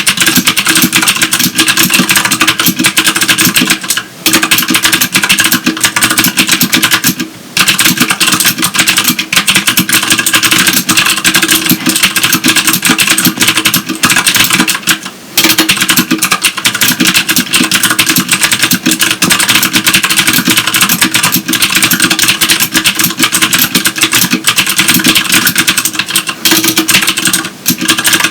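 Rapid, continuous typing on a Filco Majestouch Tenkeyless mechanical keyboard with clicky Cherry MX Blue switches, each keystroke a sharp click. It breaks off in a few brief pauses.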